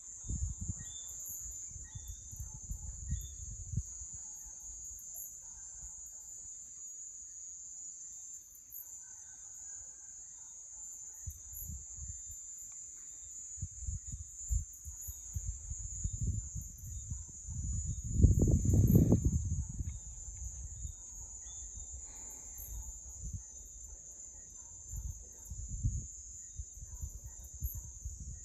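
Crickets chirring in a steady, continuous high-pitched chorus. Irregular low rumbles come and go underneath, loudest about 18 seconds in.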